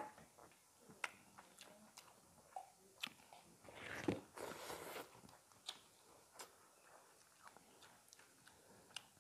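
Eating sounds of people eating chicken curry and rice by hand: soft chewing and mouth noises with scattered sharp clicks. There is a longer hiss about four seconds in.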